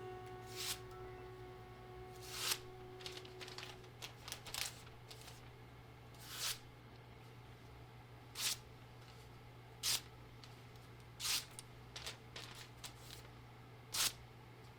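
A knife blade being sharpened: short, sharp scraping strokes, one about every one and a half to two seconds.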